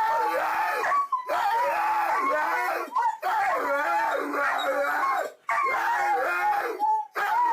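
A dog howling in long, wavering, up-and-down calls, about five in a row with short breaks between them.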